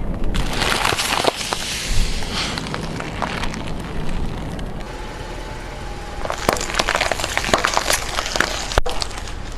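A plastic toy car cracking and crunching under a car's tyres, in two spells of dense snapping over the low steady rumble of the car.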